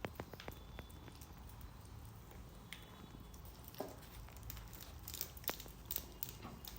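Faint, irregular light clicks and taps, a few sharper ones around the middle and later on.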